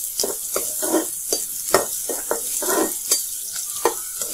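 Sliced onions and green chillies sizzling in hot oil in a kadai, with a steady hiss, while a spatula scrapes and stirs them in quick, irregular strokes about two to three a second. The onions are being fried toward golden brown.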